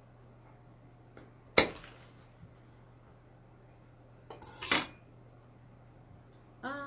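A knife cutting through an apple, the blade striking the board beneath with a sharp knock about a second and a half in, then a few quick knocks and clatters near the five-second mark. A low steady hum runs underneath.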